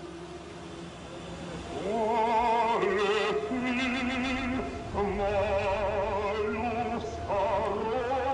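Old Soviet-era party song playing: a singer holds long notes with heavy vibrato over accompaniment, much louder from about two seconds in after a softer opening.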